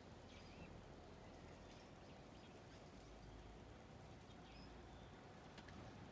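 Faint, scattered short calls of azure-winged magpies over a steady low background hum, with a single sharp click about five and a half seconds in.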